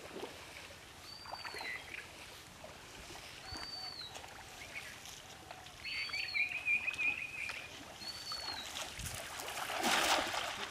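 Water sloshing as a man wades in a pond, then a cast net splashing down onto the water near the end, the loudest sound here. A bird repeats a short high call about every two seconds, with a brief trill from another bird midway.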